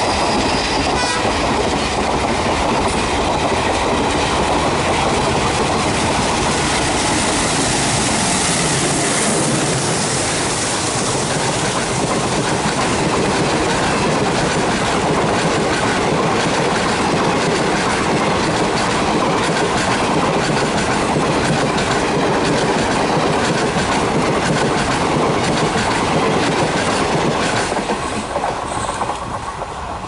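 Indian Railways express passenger coaches passing close by at speed, their wheels clattering steadily over the rail joints in a loud continuous rush. The sound fades near the end as the last coach goes by.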